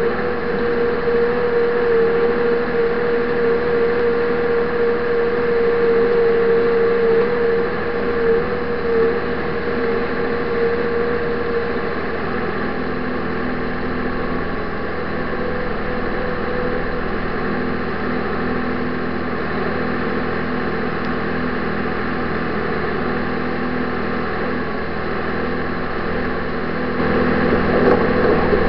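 Land Track tracked snow vehicle's engine running steadily under load, heard from inside the cab, with a steady whine. It grows louder near the end.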